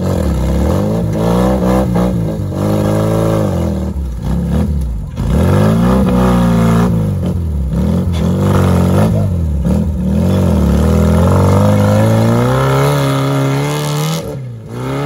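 An off-road 4x4's engine revved hard again and again, its pitch surging up and dropping back every second or two, as it works through deep mud. Near the end it climbs to a high, steadily rising pitch and holds there.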